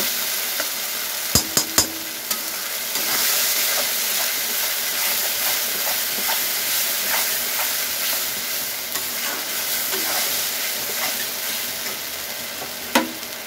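A spice paste (masala) frying and sizzling in hot oil in a black iron kadhai while a steel spatula stirs and scrapes it. A few sharp clinks of spatula on pan come about a second and a half in, and another near the end.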